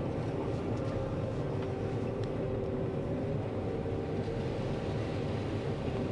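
John Deere 9500 combine running steadily while harvesting corn: a constant engine and machinery drone with a few steady tones in it.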